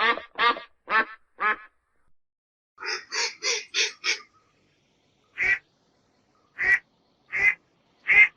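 Duck quacking: four quacks about half a second apart, a quicker run of five around three seconds in, then four single quacks spaced about a second apart, with silence between them.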